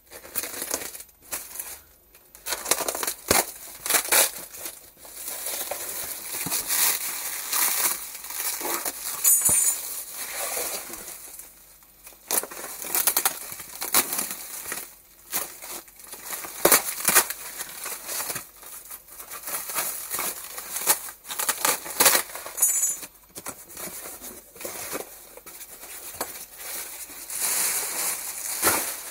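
Plastic stretch film crinkling and tearing as a parcel is unwrapped by hand, with cardboard rustling as the box is opened. The sound comes in irregular bursts of rustle throughout.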